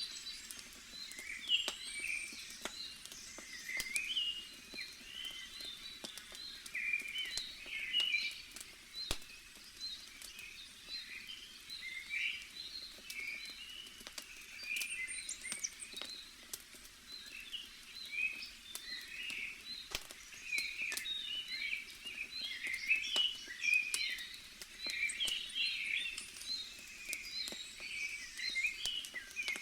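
Crackling bonfire, with sharp pops scattered irregularly throughout, over a steady chorus of small birds chirping.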